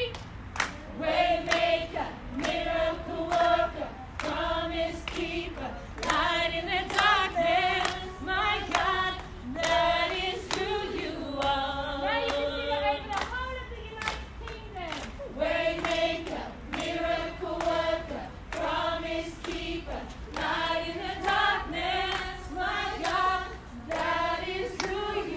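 A group of children singing a worship song together, with hand clapping.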